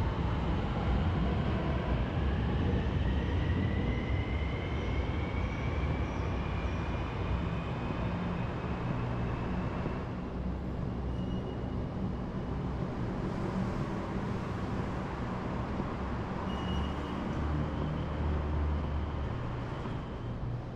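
Electric light-rail train running with a steady low rumble, its motor whine rising in pitch over the first several seconds as it picks up speed, then holding steady.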